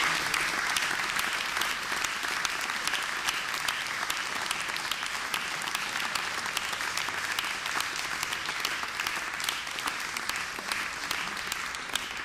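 Audience applauding, with single hand claps standing out in the clatter; loudest at the start, then easing off a little.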